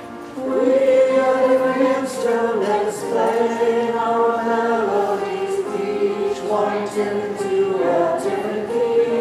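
A group of people singing a hymn together in slow, held notes.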